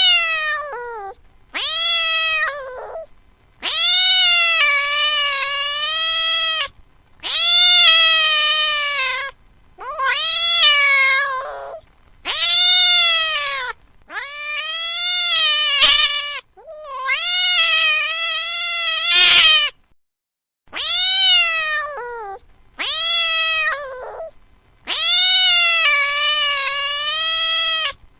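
Domestic cat meowing over and over: about eleven long, drawn-out meows, each one to three seconds, rising then falling in pitch, with short pauses between them.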